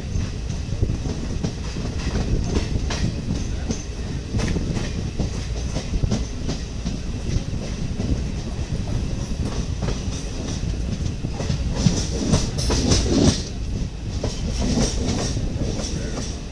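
Express passenger train running on the rails, heard from aboard a coach: a steady rumble of wheels on track with repeated clicks and clatter over rail joints, loudest and thickest about twelve to thirteen seconds in.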